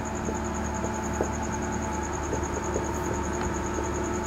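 Steady background hum and hiss with a faint, pulsing high tone, and light faint ticks every half second or so.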